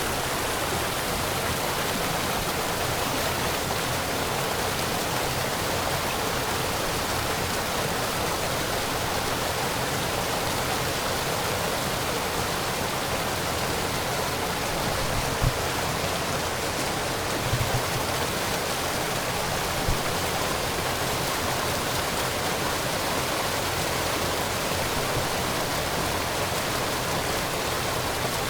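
Small waterfall splashing and rushing steadily, with a few brief low thumps a little past the middle.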